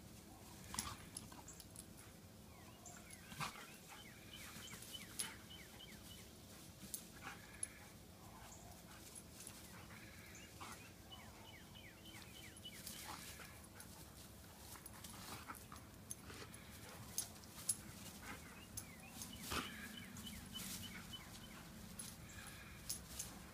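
Young German Shepherd-type dog giving short whimpering and yipping cries scattered through, with sharp clicks here and there.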